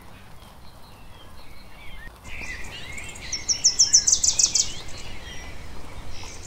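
Steady rain falling in a garden, with birds chirping. About halfway through, one bird gives a loud, rapid run of high repeated notes lasting over a second.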